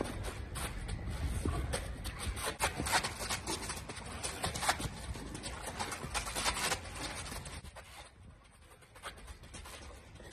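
Quick, irregular scuffs and thuds of footwork and a swung training bag, over a steady low wind rumble on the microphone. The sounds thin out about three quarters of the way through.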